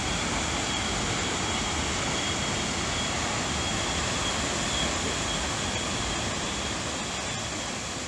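Waterfall rushing: a steady, even noise of falling water on rock, growing slightly fainter near the end.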